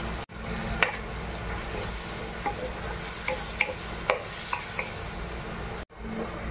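Chicken pieces cooking in sauce in a metal wok, with a steady hiss under a wooden spatula that stirs, scrapes and knocks against the pan several times.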